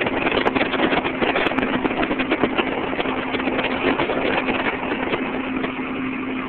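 Powered parachute's engine running steadily in flight, a constant drone under a dense rush of air noise.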